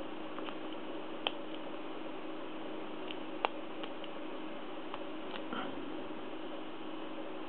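A few scattered sharp metallic clicks of a lock pick and tension wrench working the cylinder of a Lince padlock, over a steady background hiss.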